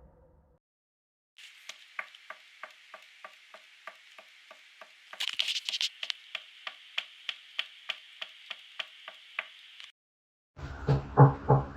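Knocking altered by a voice-changer effect: a steady run of short knocks, about three a second, over a thin hiss, with a louder rasp about five seconds in. The knocks stop about ten seconds in, and heavier rhythmic thumps start just before the end.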